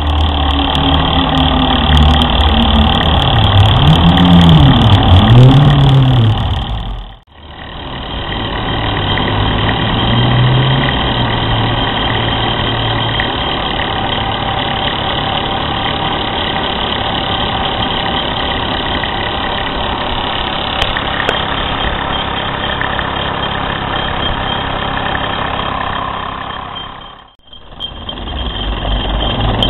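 Mamod SR1 toy steam roller's small steam engine running under steam, a steady busy mechanical sound with the pitch of its low note wavering in the first few seconds. It cuts out suddenly twice, about seven seconds in and near the end, and resumes each time.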